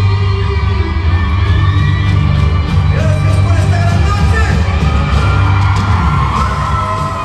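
Amplified pop-rock music with a heavy bass, booming through a stadium from the PA, with the crowd yelling and cheering over it.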